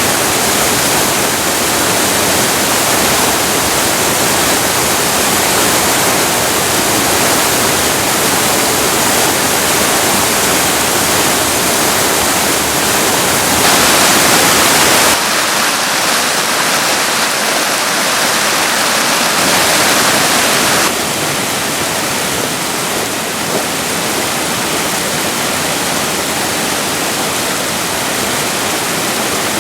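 Steady rushing of a mountain stream, the Kibune River, flowing over rocks; its loudness and tone change abruptly a few times, as at shot changes.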